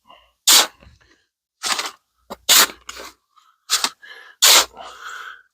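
Wet concrete mix being stirred by hand with a tool: about five short gritty scraping strokes, roughly a second apart, through a stiff mix that still has dry pockets.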